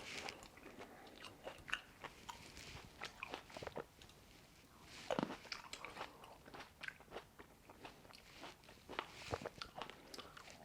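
A person chewing and biting Shine Muscat grapes close to the microphone: soft, scattered crunches and mouth clicks, with louder bites about five seconds in and near the end.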